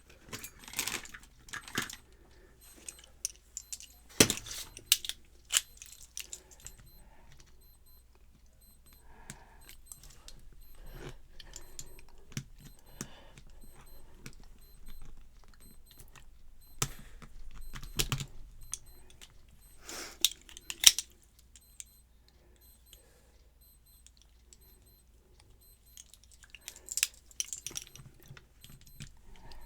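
Small metal clicks, scrapes and taps from tools working on a TRIMAX padlock, prying to free a stubborn clip so the lock can be taken apart. There are a few sharp knocks along the way, the loudest about four seconds in and again around eighteen and twenty-one seconds.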